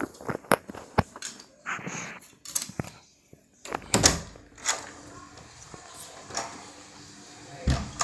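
Irregular knocks and bumps with rustling handling noise, the loudest knocks about four seconds in and near the end, and a steady faint hiss for a few seconds between them.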